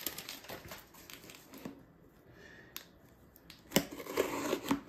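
Pocket knife blade cutting through packing tape on a cardboard box, with scraping of the blade and cardboard and paper handled. Quieter in the middle, then a run of sharp clicks and scrapes near the end as the blade slits along the seam.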